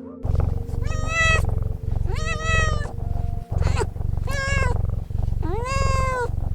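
Domestic cat meowing repeatedly: four drawn-out meows and one short one, each rising then falling in pitch, over a steady low rumble.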